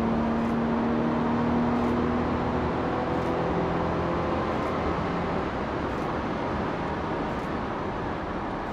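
Cabin sound of a Mercedes-Benz C250 (W204) driving at speed. A steady engine hum fades away over the first few seconds, leaving steady tyre and road noise.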